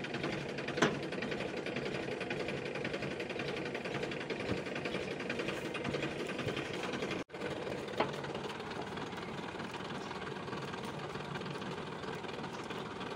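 Massey Ferguson 1035 DI tractor's three-cylinder diesel engine idling with a steady rapid clatter. Two sharp knocks stand out, about a second in and about eight seconds in. The sound cuts out for an instant just after seven seconds.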